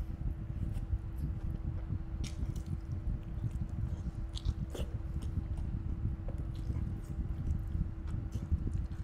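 Close-up mouth sounds of a person biting into and chewing a curried chicken leg, with a few sharp clicks now and then. A low steady hum runs underneath.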